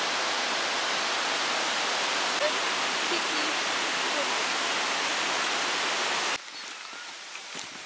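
Whitewater of a mountain river rushing over boulders: a loud, steady rush of water that cuts off abruptly about six seconds in, leaving a much quieter outdoor background.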